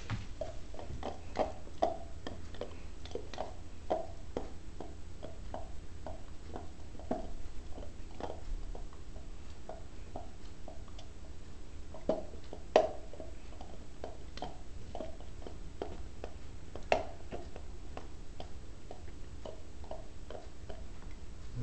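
A dog chewing and gnawing on a golf ball held between its paws: irregular small clicks and taps of teeth on the hard ball, with a few sharper, louder clicks.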